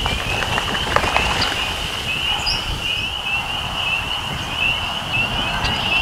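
Chorus of spring peepers: many short rising peeps overlapping without a break, with a few scattered higher bird chirps and a low rumble underneath.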